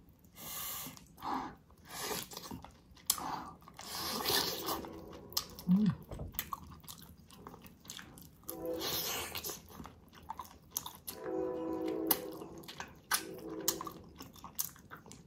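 Close-miked biting and chewing of spicy braised ox feet, the sticky, gelatinous collagen skin giving wet chewing sounds with many quick mouth clicks and smacks.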